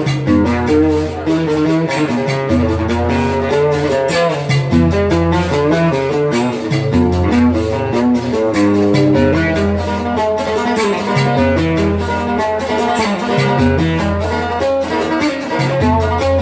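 Instrumental passage of an Arabic song with no singing: a plucked-string melody over a bass line and a fast, steady percussion beat.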